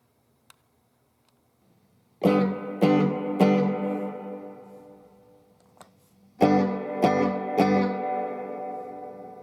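Electric guitar through a VOX EL84 valve combo amp: two phrases of three strummed chords each, about three seconds apart, each phrase left to ring out and fade.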